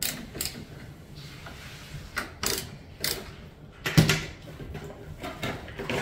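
A door knob latch being screwed into the edge of a wooden door and handled: a series of sharp metal clicks and knocks, the loudest about four seconds in.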